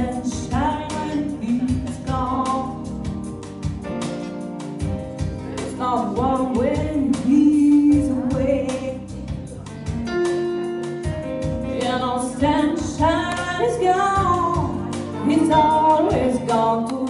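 A woman singing a jazz song through a microphone, with live electric keyboard accompaniment.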